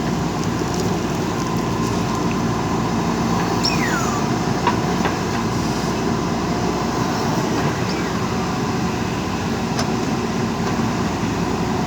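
JCB 3DX backhoe loader's diesel engine running steadily under work, with a few metallic clanks and a brief falling squeal about four seconds in.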